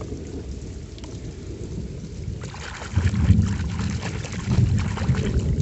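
Muddy puddle water splashing and churning as a hand scrubs a toy through it, starting about halfway through and continuing.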